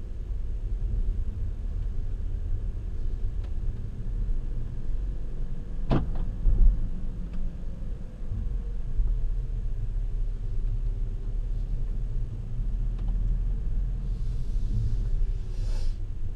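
Car driving slowly, heard from inside the cabin: a steady low engine and road rumble, with one sharp knock about six seconds in and a short hissing noise near the end.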